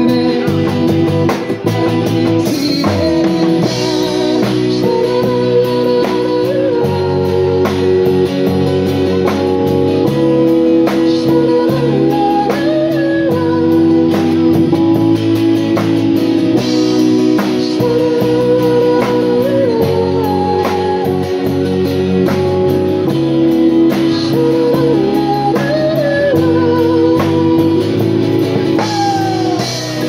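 Live amplified band playing a pop-rock song, with drum kit, acoustic and electric guitars and keyboard, and a sung melody over them.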